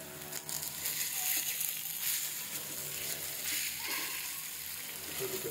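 Chilli sambal paste sizzling in oil in a frying pan, a steady hiss, while a silicone spatula stirs and scrapes it around the pan.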